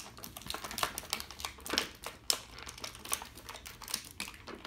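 Clear plastic packaging for action-figure accessories crinkling and clicking in the hands as it is worked open: irregular sharp crackles and ticks.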